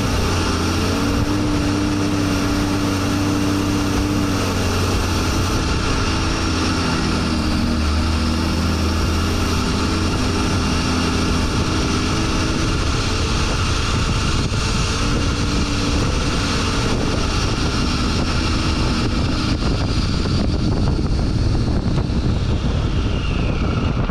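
Four-wheel drive's engine running as it climbs a dirt track, its note shifting up and down, with tyre and wind noise.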